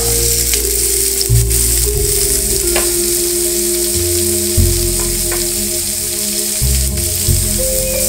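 Oil sizzling in a non-stick frying pan as cubed chow chow (chayote) is tipped in onto frying onion, tomato and green chilli. A few sharp clicks sound through the steady sizzle.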